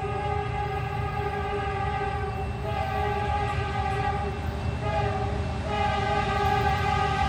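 Air horn of an approaching CN freight locomotive sounding, a multi-note chord held through, with some of its notes dropping out and coming back twice, over a low rumble from the train; it grows louder toward the end as the train nears.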